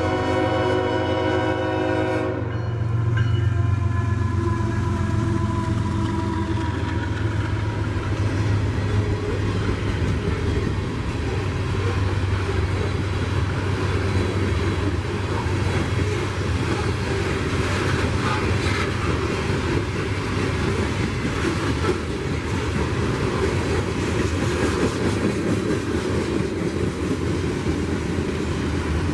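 Diesel freight locomotive's air horn sounding a multi-note chord that cuts off about two seconds in, then the steady rumble and wheel clatter of the freight train rolling past.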